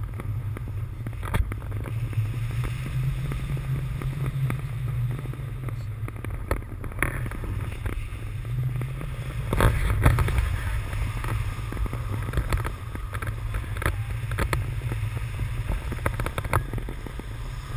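Airflow buffeting an action camera's microphone in paragliding flight: a steady low rumble, with a handful of sharp cracks, the loudest about ten seconds in.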